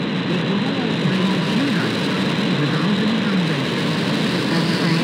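Shortwave AM broadcast on 5925 kHz received on an RTL-SDR V3 with a W6LVP loop antenna: a steady hiss of static with a faint talking voice underneath.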